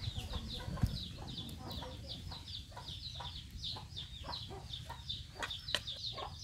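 Chickens peeping: a steady run of short, high chirps, about four a second. Underneath, water splashes and a metal ladle clinks as it scoops in a bucket of water.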